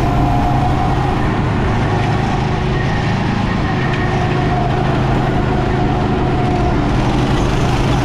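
Steady road and engine noise of a moving car, an even rumble with no breaks.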